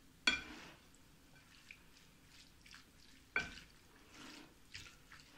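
A dressed squid, carrot and onion salad being tossed with a spatula in a glass dish: soft wet squelching and dripping. Two sharp knocks on the glass dish come, one just after the start and one a little past three seconds.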